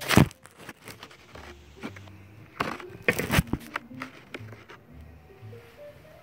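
A few sharp knocks and scraping handling noises, one right at the start and the loudest cluster about three seconds in, over faint background music.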